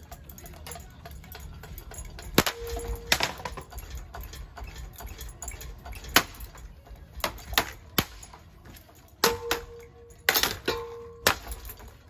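Damaged Harbor Breeze ceiling fan spinning over a low rumble, with irregular sharp clicks and knocks from its broken parts; a few of the knocks leave a short metallic ring.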